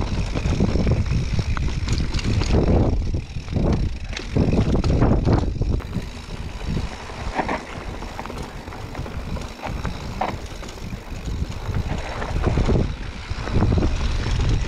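Mountain bike riding over a rough trail: the rattle and knock of the bike over the ground, with wind buffeting the microphone. It eases off for several seconds in the middle.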